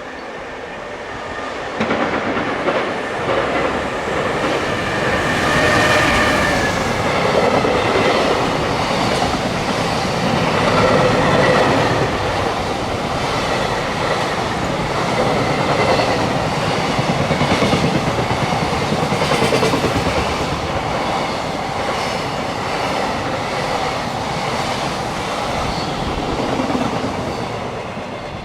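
A long freight train passing, its wheels clattering over the rail joints in a steady stream of clacks. The noise builds sharply about two seconds in and fades near the end.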